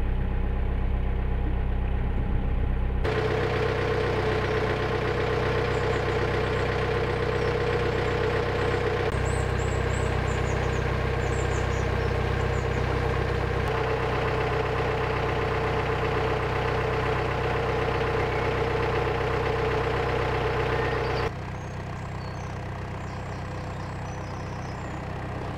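Narrowboat engine running steadily while cruising. Its tone and level change abruptly a few times, and it drops quieter near the end.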